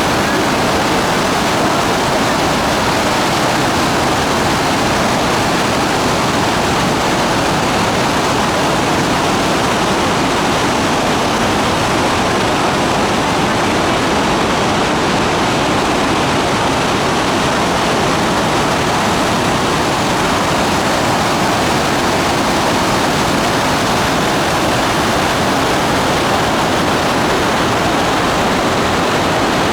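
The Rhine Falls, a large river waterfall, making a loud, steady rush of falling water that does not change.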